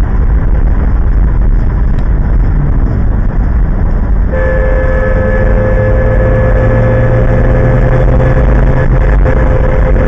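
Steady road and wind noise inside a car at highway speed. About four seconds in, a car horn starts and is held down without a break.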